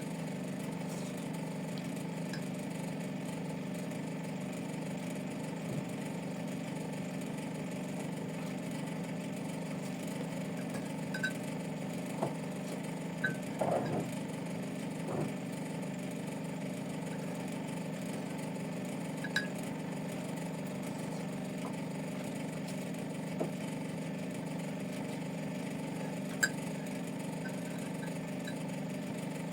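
A steady mechanical hum, with scattered light clicks and clinks, a small cluster of knocks about halfway through and one sharper click near the end.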